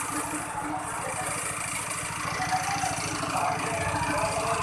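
Small petrol engine driving a wet coffee pulper, running steadily with a fast, even firing beat.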